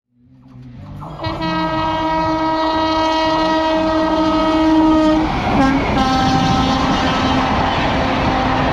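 Indian Railways WAP-4 electric locomotive sounding its horn at a level crossing. A long blast comes about a second in, then after a brief break a second blast at a lower pitch as the train runs past. The rumble and clatter of the coaches' wheels rise under the horn.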